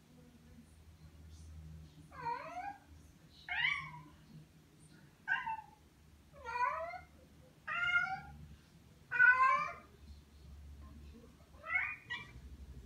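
Domestic cat meowing loudly over and over: seven separate meows, each bending in pitch, about one every second and a half, with a longer pause before the last one.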